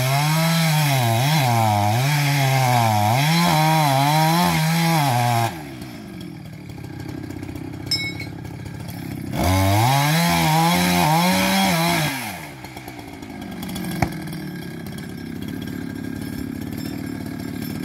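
Two-stroke chainsaw running at high revs with its pitch wavering as it cuts for about five seconds, then dropping to idle. It revs up again for a couple of seconds about halfway through, then settles back to idle.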